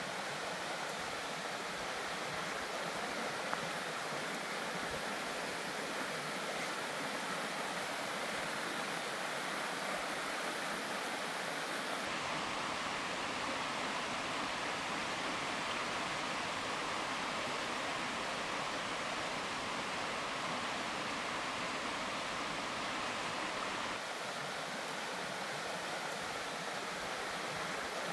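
A mountain creek rushing steadily, a constant even noise of flowing water. Its tone shifts slightly twice, about a third and about two-thirds of the way through.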